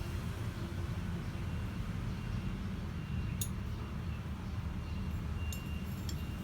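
A steady low rumble with a few faint, short clicks.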